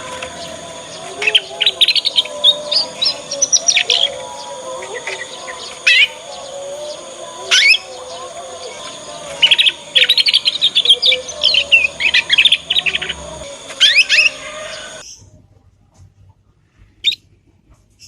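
Young canary (kenari paud) singing its immature learning song: bouts of rapid high twittering chirps and trills with short pauses between them. The song cuts off suddenly a few seconds before the end, leaving one lone chirp.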